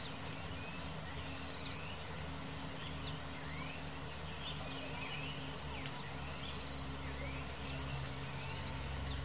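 Countryside ambience: birds chirping with short rising and falling calls, and an insect's short pulsed buzz repeating every second or two, over a steady low hum that swells into a low rumble in the last few seconds.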